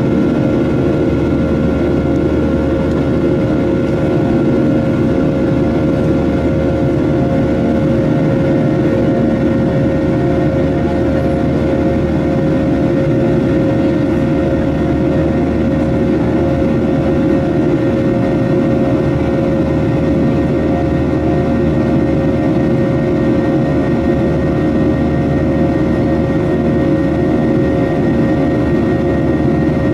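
Boeing 737-800's CFM56-7B turbofan engines in flight, heard from inside the cabin by the wing: a steady, dense rumble with a few steady whining tones on top.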